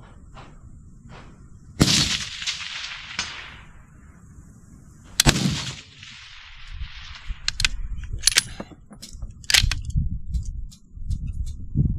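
Two rifle shots about three and a half seconds apart, each with a long rolling echo, followed later by several sharp clicks and knocks.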